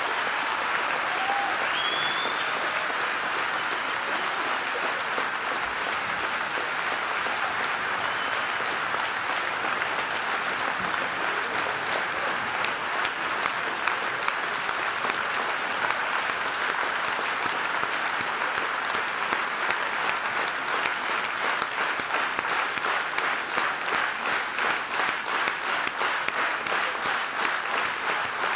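Large audience applauding. In the second half the clapping falls into a rhythmic beat, clapping in unison.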